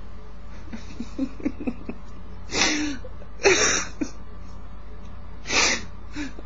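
A man laughing helplessly, with faint high squeaks at first, then three loud wheezing gasps for breath.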